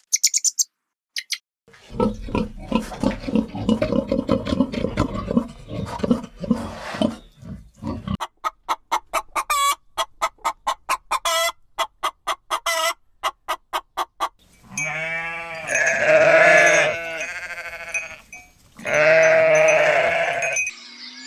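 Farm animal sounds: a low, rough stretch, then a run of quick clicks, then two long, wavering bleats from a goat near the end, the loudest part.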